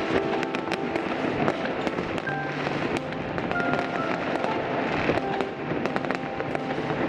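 Fireworks going off in a rapid, continuous series of sharp pops and crackling bangs, with classical music playing over them.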